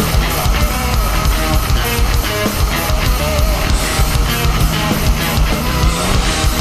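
Loud heavy rock music with electric guitar and a steady beat.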